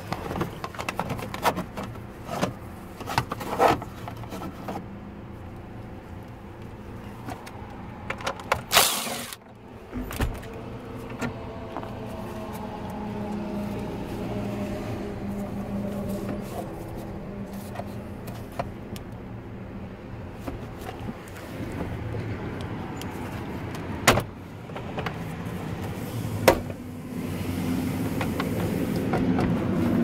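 Irregular clicks and knocks of plastic dashboard trim and a screwdriver being handled as the lower dash panels of a Ford F-150 are worked loose, with a sharp clack about nine seconds in and two more sharp clicks near the end. A steady low hum runs underneath and grows louder near the end.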